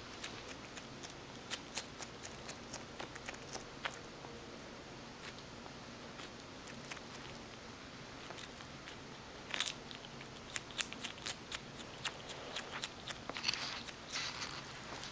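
Striped skunk chewing food, a string of short irregular clicks and smacks, busiest about ten seconds in.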